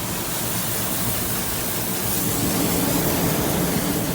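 Pressure washer running: a steady hum from its motor and pump under the broad hiss of the water jet spraying, a little louder about halfway through.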